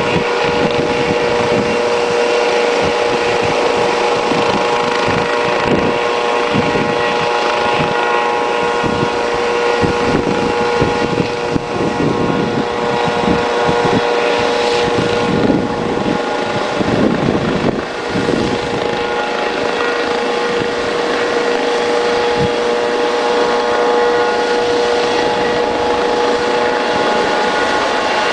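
Helicopter hovering close by: a steady, loud turbine whine over the hiss of the rotor wash.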